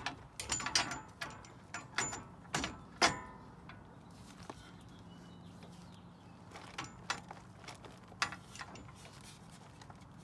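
Metal clinks and knocks as a Bilstein 6112 coilover is worked into place in a truck's front suspension. A quick cluster of sharp knocks comes in the first three seconds, then a quieter stretch with a few more knocks later.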